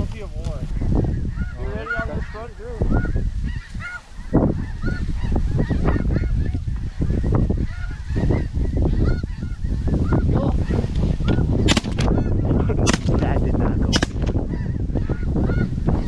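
Flocks of snow geese calling overhead, many short high honks overlapping, over a heavy rumble of wind on the microphone. Three sharp clicks come near the end.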